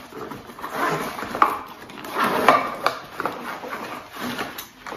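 A black nylon camera bag being handled and opened inside a cardboard box: a run of short fabric rustles and scrapes against the cardboard.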